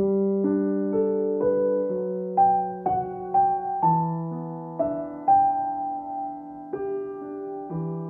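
Calm, slow solo piano music: a gentle melody of single notes struck about twice a second over sustained, ringing chords.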